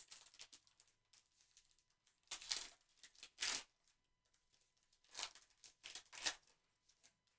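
Plastic wrapper of a trading card pack being crinkled and torn open, in several short, faint bursts.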